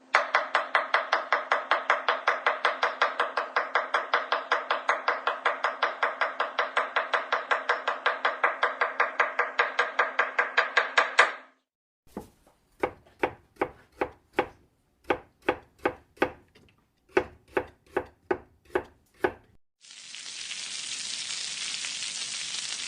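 A run of kitchen sound effects: fast, even knife chopping at about five strokes a second for about eleven seconds, then after a short pause separate chops in short runs, then a steady hiss near the end.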